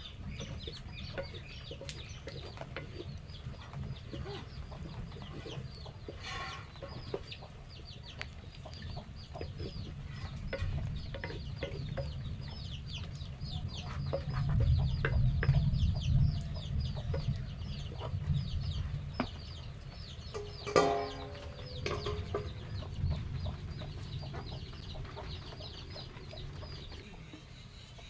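Chickens clucking, with quick high falling peeps repeating all through, over a low rumble that grows louder in the middle. A wooden ladle scraping and knocking in a clay cooking pot gives scattered short clicks.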